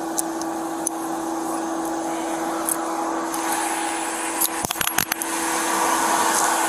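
Steady mechanical hum of an idling vehicle's engine and fan, growing louder in the second half. A few sharp clicks come about three-quarters of the way through.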